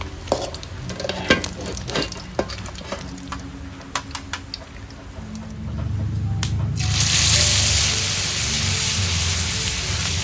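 A few clinks and knocks of utensils, then about seven seconds in a loud frying sizzle starts suddenly as food goes into hot oil in a pan, and it carries on. Background music plays underneath.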